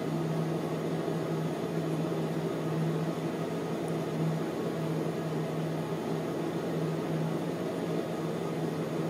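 Steady low electrical hum of an appliance or fan running, with a faint hiss over it and no distinct events.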